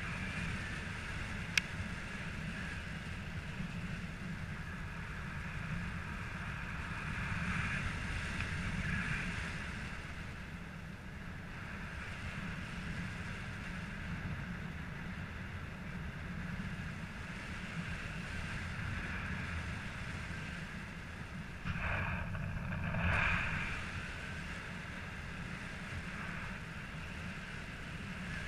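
Steady rush of airflow over the camera's microphone during paragliding flight, swelling briefly about two-thirds of the way through, with a single sharp click near the start.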